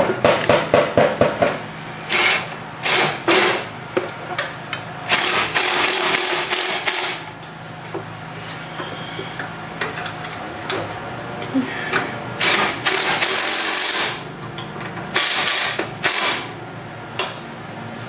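Cordless impact driver with a socket fitted, run in a series of short bursts a few seconds apart, driving nuts on a lawn tractor's frame, with rapid hammering strokes in the first second or so.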